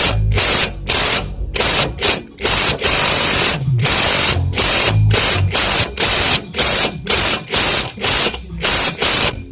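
Impact gun driving an O2 sensor socket, run in short trigger bursts about twice a second as the new upstream oxygen sensor is tightened into the exhaust.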